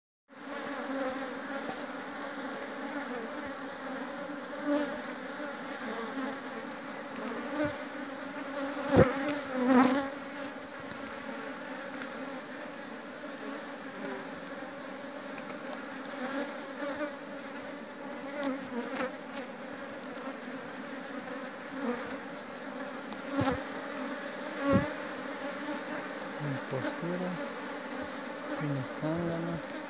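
Honey bees humming steadily over an opened hive. The hum is broken by a few sharp knocks, loudest about nine seconds in.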